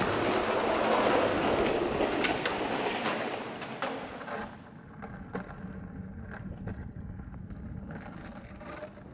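Skateboard wheels rolling over pavement: a loud, even rolling noise that fades about four and a half seconds in, followed by quieter scattered clicks and knocks.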